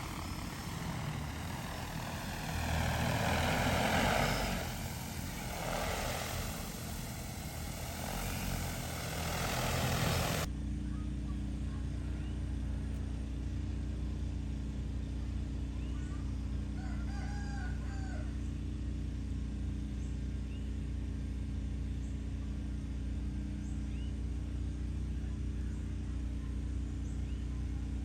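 Spraying drone's rotors rushing, swelling louder twice as it passes. Then an abrupt cut to a steady low hum, with a rooster crowing once about halfway through.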